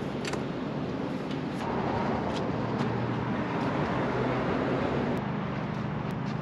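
Street traffic: a vehicle passes, its noise swelling about two seconds in and fading a few seconds later, over a steady low engine hum.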